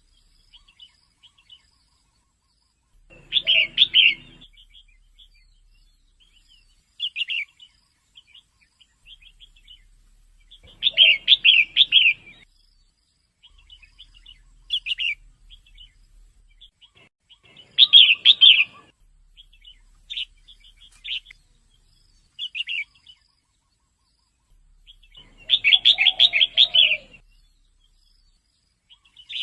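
Female red-whiskered bulbul calling: loud bursts of rapid chattering chirps about every seven seconds, with scattered single chirps between them.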